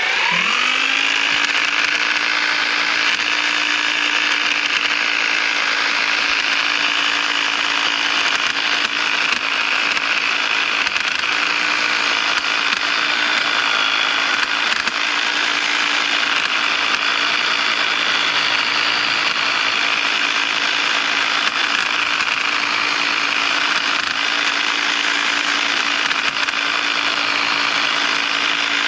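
EGO battery-powered pole hedge trimmer running steadily. It winds up to speed at the very start, then holds an even pitch: a steady hum with a higher whine above it.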